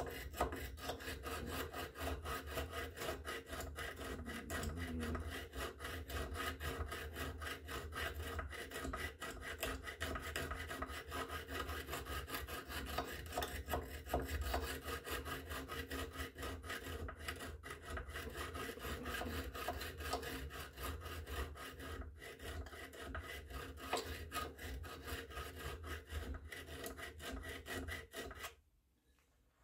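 A hard sharpening stone rubbed in quick, steady strokes along the bevel of a steel scraper blade clamped in a wood-jawed vise, honing it to a finer edge after filing. The rasping stops about a second before the end.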